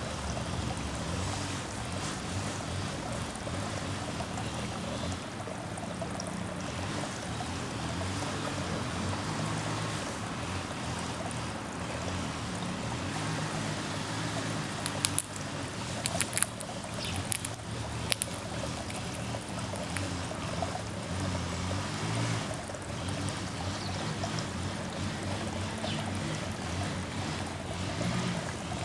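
Steady backyard ambience: an even rushing noise with a low hum under it, broken by a short cluster of sharp, high-pitched sounds about halfway through.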